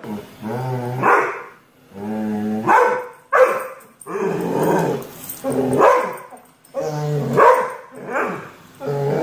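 A dog growling and barking over and over, each time a low drawn-out growl that breaks into a sharper bark, about six times.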